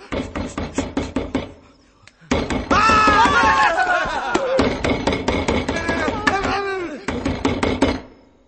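Rapid, repeated whacks of a stick beating a person, with a short lull about two seconds in. Loud, wavering yelling rises over the blows soon after the lull and again near the end.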